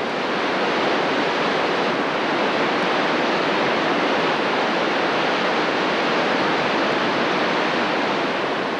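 Shaki waterfall: a steady, dense rush of falling water that swells up during the first second and then holds even.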